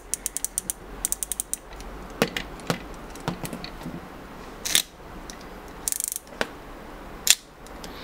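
Quick runs of small ratcheting clicks from the HBS 900 headset's retractable earbud cord reel as the wire is drawn out, followed by scattered single clicks and taps from handling the opened plastic housing.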